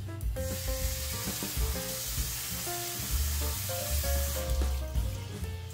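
Kitchen faucet running water over pinto beans in a handheld collapsible strainer to rinse them: a steady hiss that stops about four and a half seconds in.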